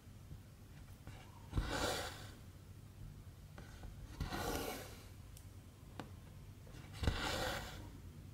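Embroidery thread being drawn through cross-stitch fabric three times: each pull starts with a light tap and rasps for about half a second.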